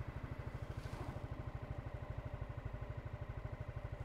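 Honda Forza 250 scooter's single-cylinder engine idling, a steady low pulsing of about a dozen beats a second.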